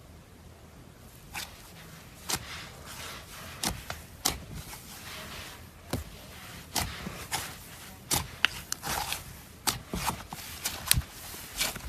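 Cloud slime worked by hand, giving irregular soft crackles and sharp pops that come thicker toward the end.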